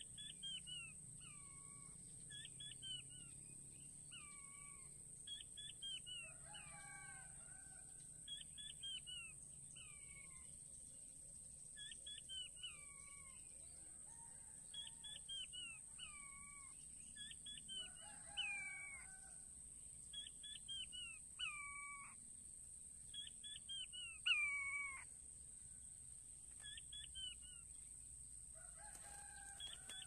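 Quail calling: a long series of short whistled notes that slide downward, in twos and threes about every second, loudest about three-quarters of the way through, over a steady faint high-pitched tone.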